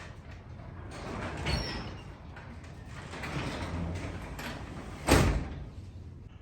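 Old, dented, sagging sectional garage door being worked by hand, moving with a noisy, uneven rumble, and a loud bang about five seconds in. The door is hard to open.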